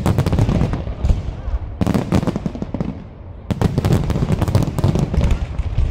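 Fireworks display: dense volleys of rapid bangs and crackling from exploding aerial shells, easing briefly about three seconds in before another volley.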